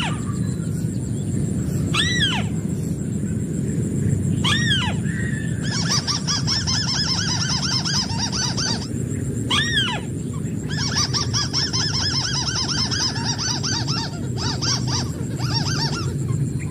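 White-browed crake calls: single nasal, arched notes a couple of seconds apart, then long runs of rapid chattering notes, twice, over a steady low rumble.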